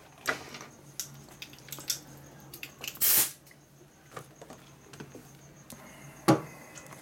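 A short hiss of compressed air from a blow gun about three seconds in, clearing a brake line. Light clicks and clinks of metal tools on a steel bench run through, and there is a sharp knock near the end.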